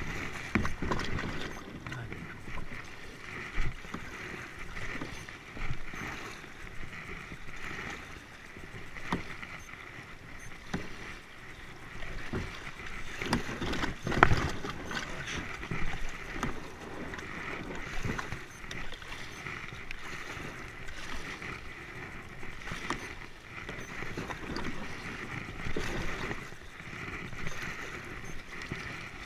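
Water splashing and rippling around a plastic sit-on-top kayak as it is paddled through shallow, riffling river water. It is a steady wash with uneven louder splashes from the paddle strokes now and then.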